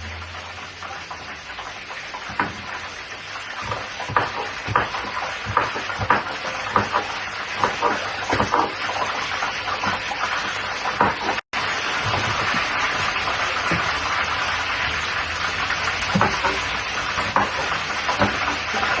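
Knife chopping cabbage on a cutting board in quick strokes, about two a second, thinning out after a brief dropout near the middle, over a steady hiss that grows louder in the second half.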